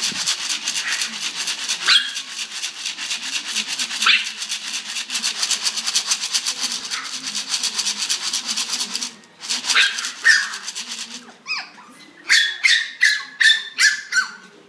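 Hungry puppies yelping and yipping over food. A fast, even rattling runs through the first two-thirds with a short high yelp every couple of seconds, then about seven quick high-pitched yips follow one after another near the end.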